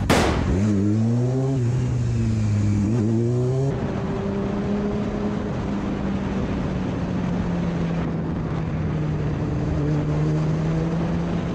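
Sport motorcycle engine heard from the rider's onboard camera while filtering through slow traffic: the revs rise and fall several times in the first few seconds, then the engine runs at a fairly steady pitch with small changes, over a steady rush of wind and road noise. A brief sharp noise comes right at the start.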